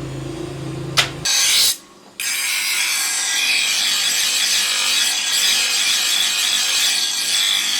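A low machine hum ends about a second in with a sharp click. After a short break, a steady dry rasping scrape of a hand tool worked against a workpiece runs on.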